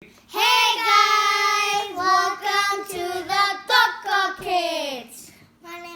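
Children singing held, drawn-out notes, the last note sliding downward about five seconds in.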